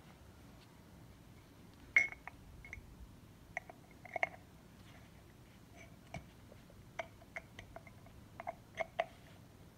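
Screwdriver tip clicking and scraping against a metal oil filter housing cap while prying out the old O-ring: irregular sharp metallic ticks, each with a short ring, the loudest about two seconds in.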